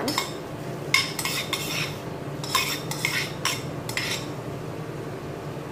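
Metal spoon clinking and scraping against a small bowl as chopped onion is scraped out into a cooking pot: a string of short clinks that stops about four seconds in.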